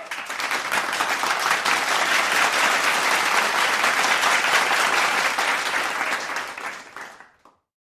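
Audience applauding, dense and steady, fading out near the end.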